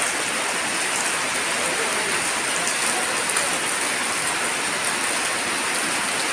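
Steady rain falling on a corrugated metal roof and a wet concrete yard, an even, unbroken hiss of rain.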